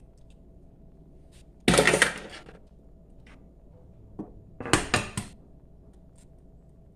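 Eggs being cracked: a sharp knock of an egg against a cup rim about two seconds in, then a quick run of three or four knocks and clinks in the middle.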